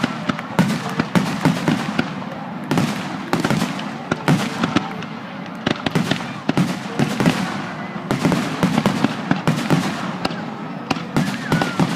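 Fireworks going off in a rapid, irregular run of bangs and crackles, several a second, with voices of onlookers faintly underneath.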